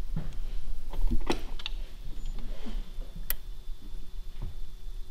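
A few scattered sharp clicks and light knocks. No wiper motor is heard running: the seized wiper linkage does not move.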